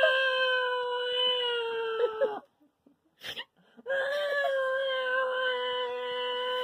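A toddler vocalizing two long, steady, held 'aaah' notes, the first stopping about two and a half seconds in and the second starting about a second and a half later.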